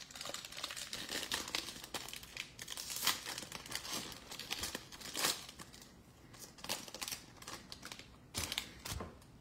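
Foil wrapper of a trading-card pack crinkling and crackling as it is handled and opened by hand: dense crackling for the first five seconds or so, then a few separate sharper crinkles.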